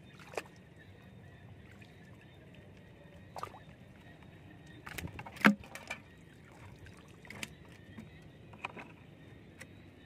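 Hands working in shallow water and a plastic bucket: scattered light splashes and knocks, with a sharp cluster about halfway through, the loudest of them all.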